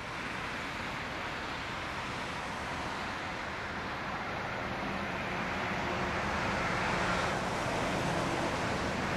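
Boeing 747-400's four General Electric CF6-80C2 turbofans at takeoff thrust, heard from well down the runway as a steady rushing rumble. It grows slightly louder as the jet rolls toward the microphone.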